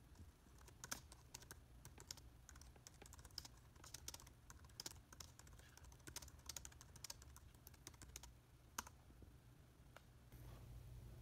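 Typing on a MacBook Pro laptop keyboard: faint, irregular key clicks, with one louder click near the end.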